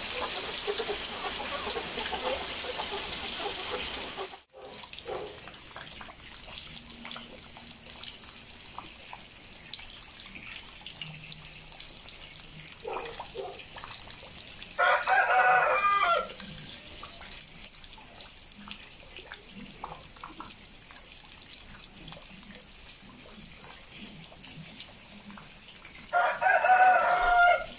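A rooster crows twice, about fifteen seconds in and again near the end, over the steady hiss and patter of heavy rain falling on concrete and dripping. The rain is louder for the first few seconds, then drops off sharply.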